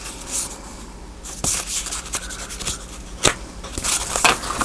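Paper and card stock being handled on a work table: soft rubbing and rustling, with a few sharp taps.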